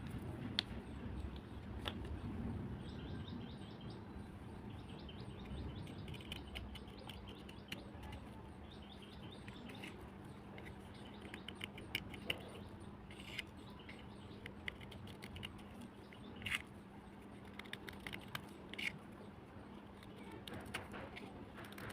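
Sharp, scattered crunches and snaps of overnight-soaked black slate or clay cubes, a few of them louder. Birds chirp in quick trills throughout, over a steady low hum.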